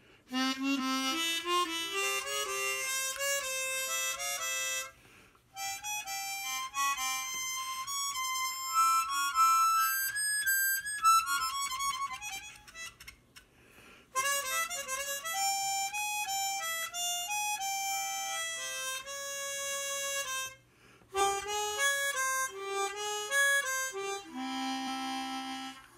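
East Top Forerunner 12-hole chromatic harmonica, a model without wind-saver valves, played in runs of single notes that step up and down. It plays in four phrases with short breaks between them and closes on a held chord near the end.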